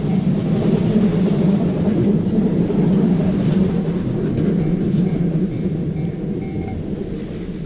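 Iida Line local train rumbling past a railroad crossing, its noise fading slowly toward the end, while the crossing bell dings faintly in an even, repeating rhythm.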